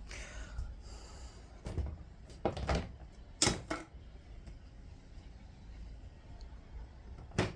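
Several knocks and clicks of objects being handled and set down, in a small room. The loudest knock comes about three and a half seconds in, and a sharp click comes near the end.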